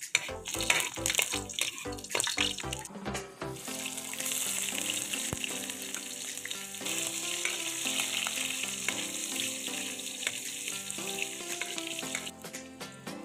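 Garlic sizzling in hot oil in a wok, stirred with a metal spatula; about four seconds in the sizzle turns louder and steadier, with sliced onion and ginger now frying in the oil.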